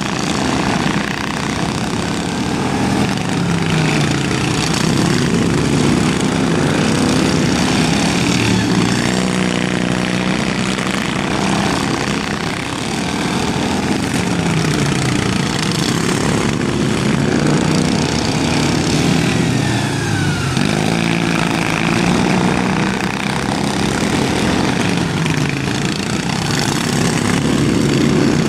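Several racing lawn mowers' small Briggs & Stratton engines running hard together, their pitch repeatedly falling and rising again as they slow and accelerate around the track.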